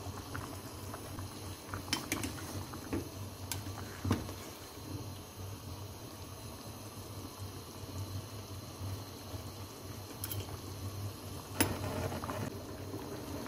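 Thick tomato-based stew bubbling at a simmer in an open enamel pot, over a low steady hum, with a few sharp clicks scattered through.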